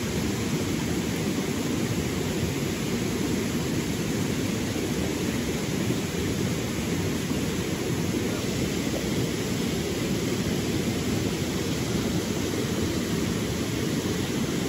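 Steady rush of stream water churning and flowing past, an even noise with most of its weight low down.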